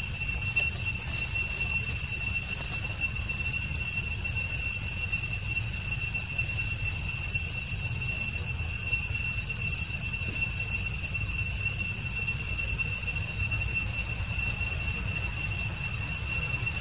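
Steady, unbroken high-pitched insect drone over a continuous low rumble.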